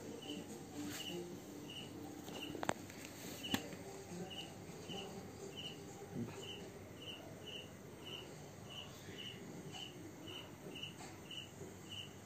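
A cricket chirping steadily at night, short high chirps repeating about two a second. Two sharp clicks sound close together about a quarter of the way in.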